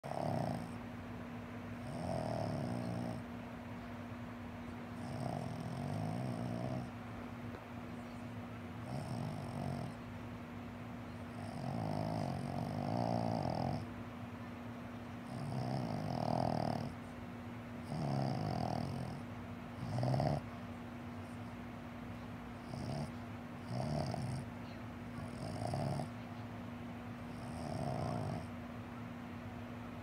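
Boston Terrier snoring in its sleep: separate snores every two to three seconds, some longer and drawn out. This is the kind of snoring typical of the breed's short, flat-faced airway.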